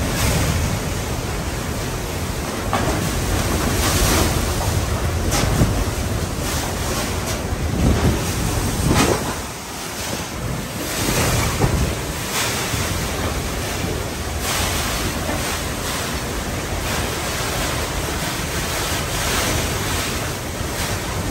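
Hurricane-force wind blowing hard in gusts, with wind-driven rain and wind buffeting the microphone. Sharper surges come every second or two, with a brief lull about halfway through.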